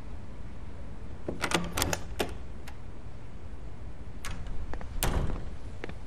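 A few sharp clicks and knocks: four in quick succession about a second and a half in, then single ones a couple of seconds apart, the last the heaviest.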